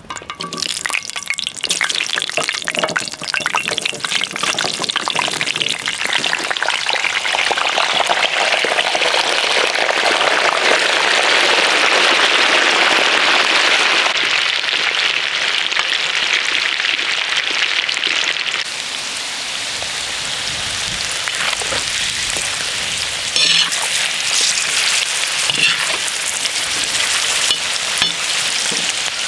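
Young potatoes sizzling in hot rendered lamb tail fat on a saj, just added to the fat. The sizzle swells for about ten seconds, then eases, with a few sharp knocks in the last third.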